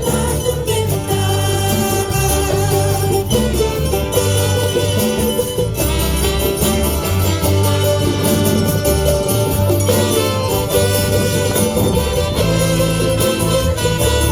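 Church praise song played live by a band, with held bass notes changing every second or two and a steady high rhythmic jingle over it.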